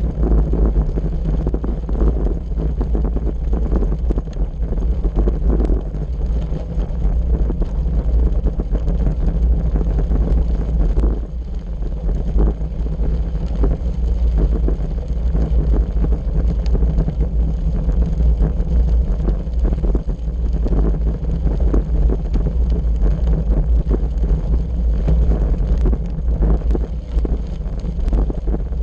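Wind buffeting the microphone of a bike-mounted camera over the steady crunch of bicycle tyres on a gravel road, with many small rattles and clicks from the bike shaking over the loose stones.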